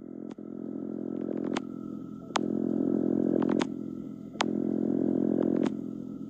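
Audio sonification of the light curve of the star KIC 7671081B: a steady, low, engine-like droning hum with several overtones that swells and dips every couple of seconds, punctuated by sharp clicks.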